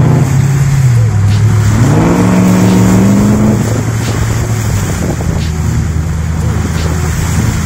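Four-wheel drive engine pulling through a shallow water crossing, with water splashing and rushing against the vehicle. The revs climb for about a second and a half, a couple of seconds in, then drop back to a steady run.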